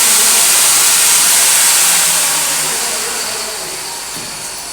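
TIG welding arc on a steel pipe root pass, a steady high hiss that fades away over the last couple of seconds.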